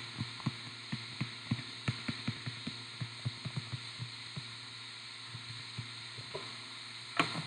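Stylus tapping and clicking on a touchscreen during handwriting: quick, irregular taps for about four seconds, then a few sparser ones and a louder click near the end, over a faint steady electrical hum.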